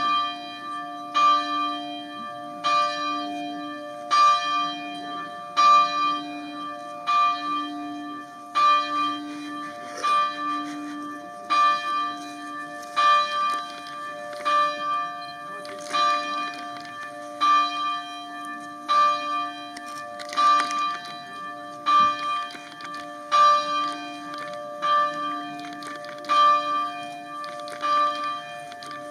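Church bell tolling steadily, about one stroke every second and a half, each stroke ringing on.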